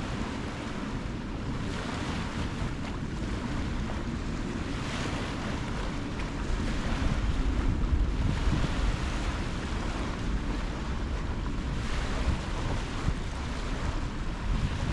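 Sea waves washing and breaking in a storm wind, the wash surging every few seconds, with wind buffeting the microphone as a low rumble; it grows louder about halfway through.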